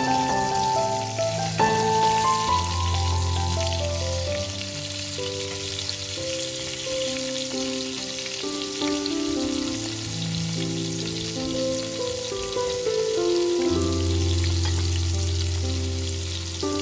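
Breaded haddock pieces sizzling as they shallow-fry in hot oil in a pan, a steady crackling hiss. Background music with held notes and a low bass plays over it.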